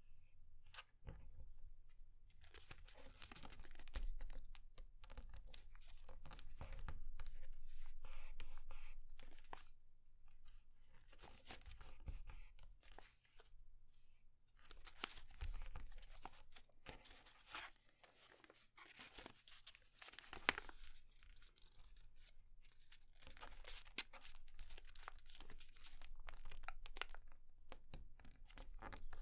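A sheet of grid paper being folded by hand on a cutting mat: irregular rustling and sliding of the paper, with short sharp crinkles as the folds are pressed flat.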